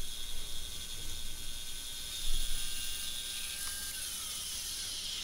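Carbide face mill taking a light finishing pass on steel angle iron at about 1700 RPM, a steady high-pitched whine over a hiss. About four seconds in, the cutter runs off the end of the part and the pitch slides down.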